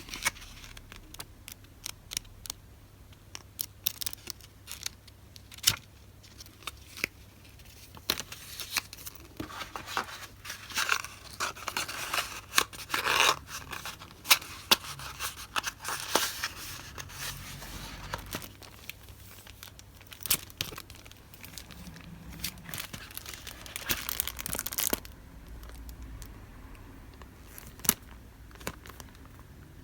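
Hands handling paper goods and their plastic wrapping: crinkling and rustling, with many small taps and clicks. The rustling is busiest through the middle.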